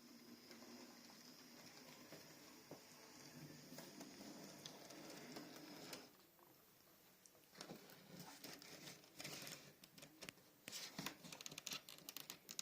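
Small electric motor of a TT:120 model railway whirring steadily for about six seconds, then stopping, followed by a run of light, irregular clicks and ticks.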